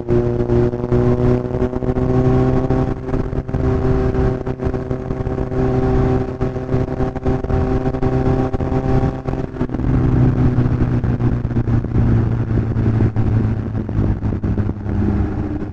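Kawasaki Z1000's inline-four engine and exhaust running under way, the pitch climbing slowly as the bike gathers speed, then falling to a lower note about two-thirds of the way through.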